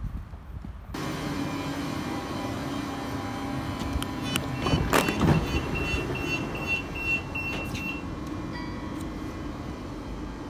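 Passenger train standing at the platform with a steady low hum, its door sounding a run of rapid high beeps for about three seconds around the middle, with a sharp clunk as the doors move.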